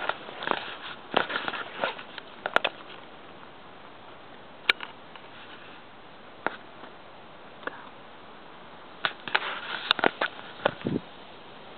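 Close rustling and handling noise from the camera being moved through dry grass, in two busy clusters near the start and toward the end, with a few single sharp clicks between and a low hiss underneath.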